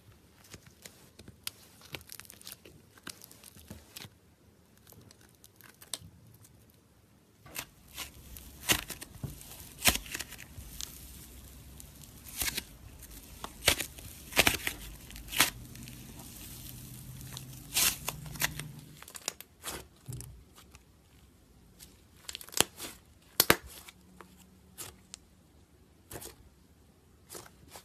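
Hands kneading, squeezing and pulling apart slime: irregular sticky pops, clicks and crackles with a tearing, crinkly sound as the fluffy slime is stretched. The popping is sparse and faint at first, busiest and loudest through the middle, then sparse again near the end.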